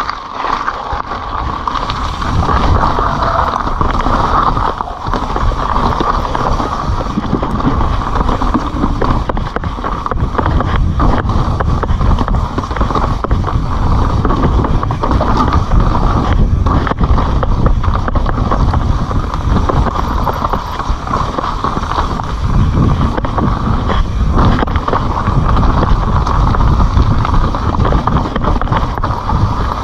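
Kona Honzo ESD hardtail mountain bike ridden fast down dirt and gravel trail: tyres rolling over the ground, the bike rattling and knocking over bumps, and wind on the microphone.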